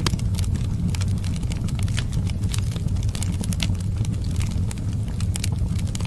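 Fireplace fire crackling: frequent sharp, irregular pops and snaps over a steady low rumble.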